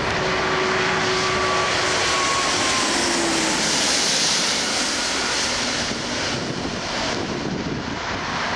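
Four-engine Airbus A340-600 jet going by, its Rolls-Royce Trent 500 engines giving a broad roar that builds to a peak about four seconds in and then eases. Thin engine whine tones dip slightly in pitch as it passes.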